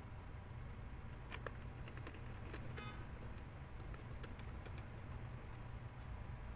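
A few scattered light clicks and taps, with a short clattering run near the middle, over a steady low hum: small plastic and metal parts being handled during laptop disassembly.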